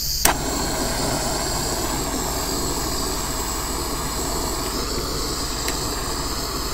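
Bernzomatic butane micro torch burning: a click about a quarter second in, then a steady hiss of the gas flame.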